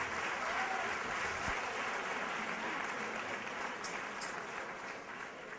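Audience applauding in a hall, the clapping dying away toward the end.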